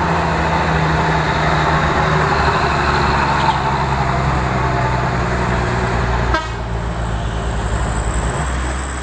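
Diesel engine of a flatbed truck hauling a road roller, running steadily under heavy load on a climb. About six seconds in there is a sharp click, after which it runs a little quieter.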